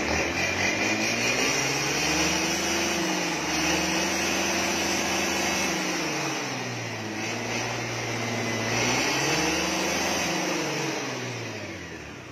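Honda Lead scooter's single-cylinder engine blipped up from idle twice on the throttle. The first rev is held high for about four seconds, drops back to idle, then a second shorter rev rises and falls away near the end. It runs through a gutted exhaust, on a freshly remapped ECU with the rev limit raised.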